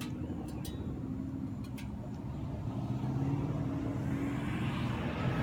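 2014 Mustang GT's 5.0 Coyote V8 burbling at low revs through Corsa Xtreme axle-back exhausts with the resonators deleted, with a few sharp exhaust crackles in the first two seconds. The exhaust grows louder and rougher near the end.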